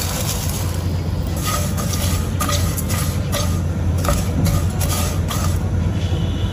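Silicone spatula scraping and tapping across a nonstick pan as it spreads dry granulated sugar, a quick run of short scrapes from about a second in until near the end, over a steady low hum.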